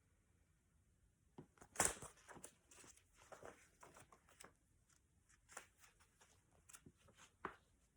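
Paper pages of a picture book being handled and turned: a run of soft rustles and taps, the loudest about two seconds in, and a last one shortly before the end.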